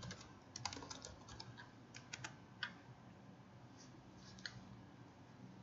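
Faint computer keyboard keystrokes: a quick run of key clicks in the first two and a half seconds, then two fainter clicks later on.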